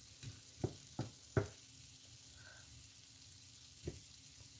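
Wooden spatula knocking against a stainless steel frying pan while stirring broccoli and potatoes, several quick knocks in the first second and a half and one more near the end. Under them the vegetables sizzle softly over a low flame.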